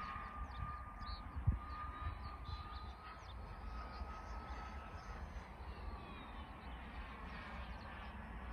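Distant Jetcentral 90N model jet turbine in flight, a thin steady whine that fades past midway and returns faintly near the end. Wind rumbles on the microphone, with one short bump about a second and a half in.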